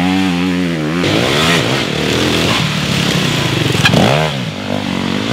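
Enduro motorcycle engine revving hard, its pitch climbing and dropping repeatedly with throttle and gear changes as the bike accelerates through muddy turns. A single sharp click about four seconds in.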